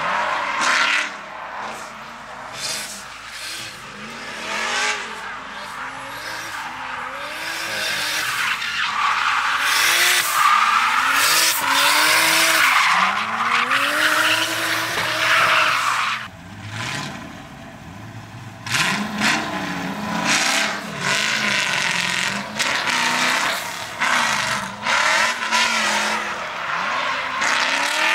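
Drift cars sliding through corners, engines revving up and down over and over while the tyres squeal and scrub. The sound drops to a quieter stretch a little past the middle, then picks up again with more revving and tyre noise.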